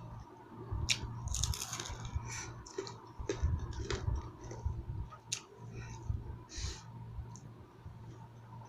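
A person chewing food close to the microphone: irregular wet clicks, squishes and small crunches of mouth sounds.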